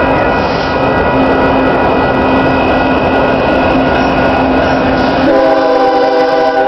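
Approaching Union Pacific stack train's locomotive air horn over loud, steady train noise. The full multi-note chord of the horn sounds again about five seconds in.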